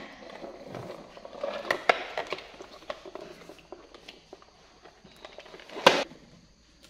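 Clicks and knocks of a large plastic toy dump truck being handled, with one louder knock about six seconds in as the truck is turned back onto its wheels and set down on the floor.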